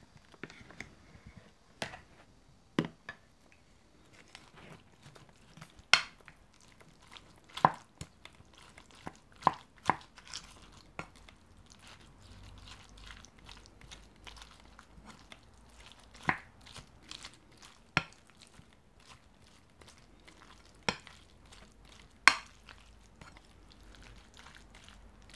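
Wooden spoon mixing bibimbap in a bowl: soft stirring noise with about ten sharp, irregularly spaced knocks as the spoon strikes the bowl.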